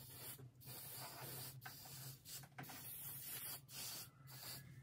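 Aerosol can of antibiotic spray hissing in about four bursts of varying length, sprayed onto an open wing wound to keep it from getting infected.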